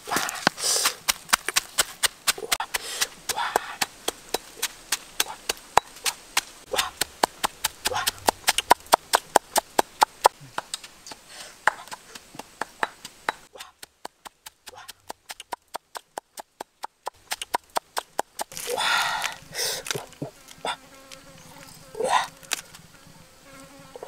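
Stone pestle pounding red chilies and salt in a stone mortar: sharp rhythmic strikes, about three a second, coming faster for a few seconds in the middle, as the chilies are crushed into a paste.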